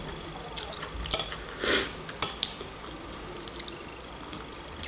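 Metal fork clicking and scraping against a dinner plate a few times, with sharp clicks about a second and two seconds in, between quiet eating sounds.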